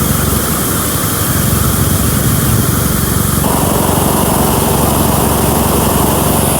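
A 20 hp Puma piston air compressor running loudly and steadily with a fast, even low pulsing; a band of hiss joins about halfway through.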